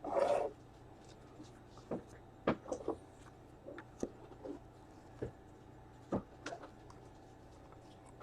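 Trading cards and their plastic holders handled on a table: a short rustle at the start, then scattered light taps and clicks, under a faint steady hum.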